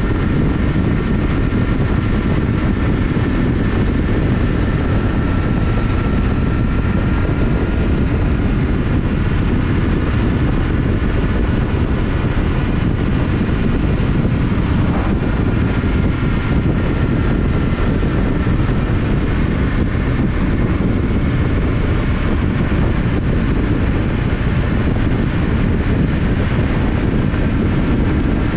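Yamaha Ténéré 700 parallel-twin motorcycle cruising at a steady speed, its engine drone mixed with heavy wind rush on the microphone. The sound stays even throughout, with a faint steady whine above it.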